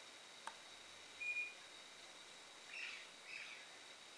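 Faint short bird chirps, a brief high call and then a couple of chirps a little later, with a single soft click about half a second in.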